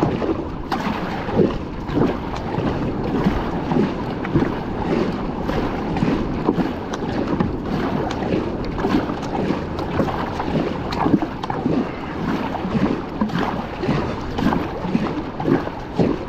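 Double-bladed kayak paddle strokes splashing into the sea about once a second, alternating sides, over water washing along the hull. Wind buffets the microphone throughout.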